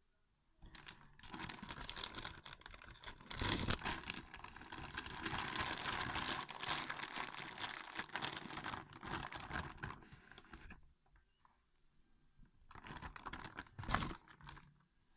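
Hands pulling and working a sticky flour-and-water dough, a crackling, tearing noise that runs for about ten seconds, then a shorter burst near the end. The dough is too wet and keeps sticking.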